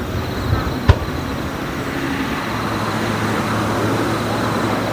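A single sharp firework bang about a second in, with a fainter pop just before it, then a steady background din with a low hum.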